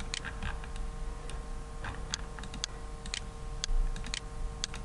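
Computer mouse clicking: about ten sharp single clicks at uneven intervals, roughly one every half second, over a faint steady hum.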